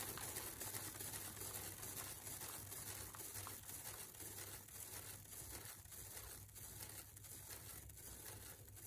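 Spinning acrylic pour panel flinging wet paint off its edge onto the plastic sheeting lining the tub: a steady noisy spatter that slowly fades as the spin winds down.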